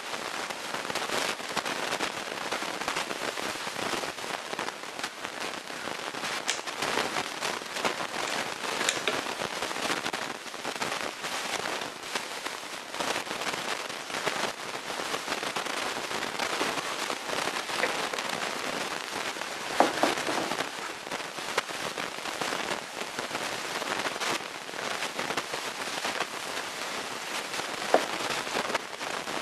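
Continuous crackling made of many small clicks, with a louder metallic clink about twenty seconds in and a sharp tick near the end: close handling of a rifle's parts on a table during disassembly.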